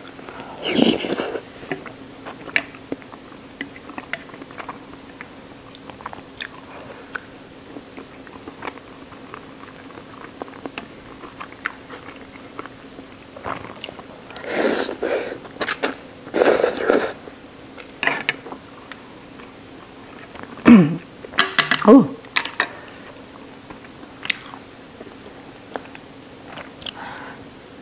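A person eating shoyu ramen, picked up close: soft chewing and mouth clicks, with two loud noodle slurps about halfway through. A short vocal 'oh' comes near the end.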